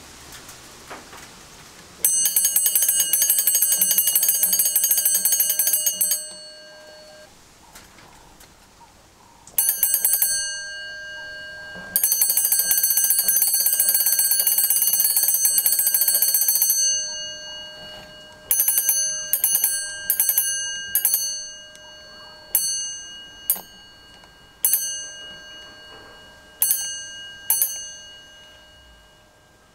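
Restored GEC telephone extension bell ringing, its clapper trilling rapidly against twin brass gongs as current comes from a hand-cranked generator. A long ring of about four seconds, a brief one, and another of about five seconds are followed by a string of short rings, each dying away.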